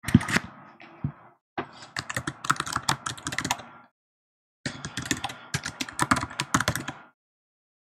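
Typing on a computer keyboard: three quick runs of keystrokes with short pauses between them, stopping about seven seconds in.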